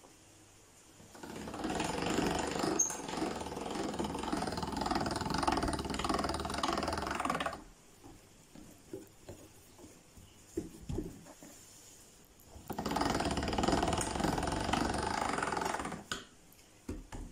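Hand-cranked chrome pasta machine being cranked, its rollers turning as cannoli dough is fed through on the widest setting, number zero. It runs for about six seconds, stops, and after a pause runs again for about three seconds, with a few light knocks in between.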